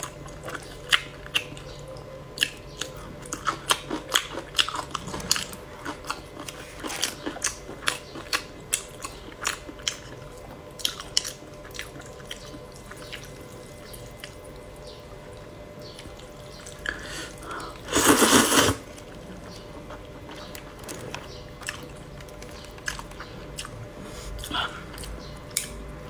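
Close-miked eating of a bowl of cold noodles: wet chewing, biting and smacking clicks, repeated irregularly. About eighteen seconds in comes one loud slurp lasting under a second.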